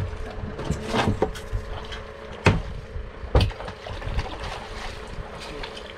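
A hooked fish splashing at the surface beside a small boat as it is landed, with four sharp splashes in the first three and a half seconds, over a steady hum and wind.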